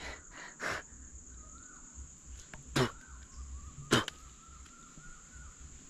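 Steady high-pitched insect drone, with soft mouth sounds of chewing early on and two sharp clicks about three and four seconds in.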